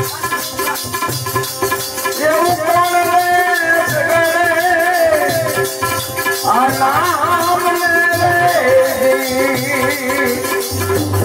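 Devotional bhajan music: a harmonium sounding steady held notes, with rattling hand percussion keeping a steady beat and a low drum underneath. A wavering sung melody comes in about two seconds in and again around six seconds.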